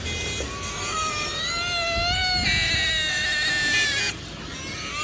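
Pig squealing in long, high-pitched, wavering cries that break off about four seconds in.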